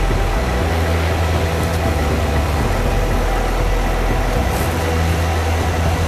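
Waterfall's rushing water: a loud, steady hiss of falling water, with a low rumble underneath that swells and fades.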